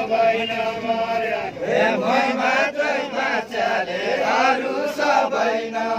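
A group of voices singing a Bajureli Deuda folk song together, unaccompanied and chant-like.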